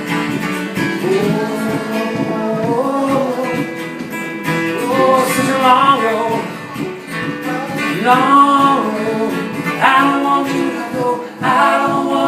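A live band playing: strummed acoustic guitar, with a melody line that slides up and down over it.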